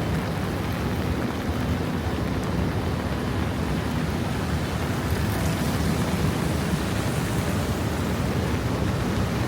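Steady rain on a city street mixed with the low, even noise of passing traffic.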